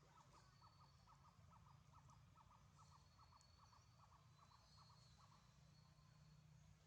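A faint, rapid, even string of short animal calls, about four a second, that stops about five seconds in.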